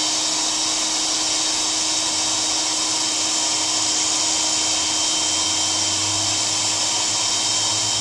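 Small electric air pump running steadily, its motor humming under a loud rush of air blown against a fidget spinner to spin it.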